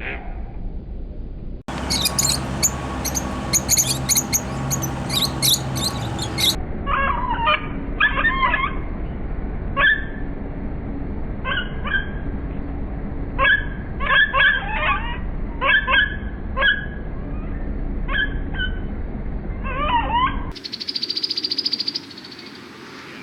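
Bird calls played back slowed down, in several clips one after another: a dense burst of high chirps, then a long run of separate calls a half second or so apart, and a short buzzy trill near the end.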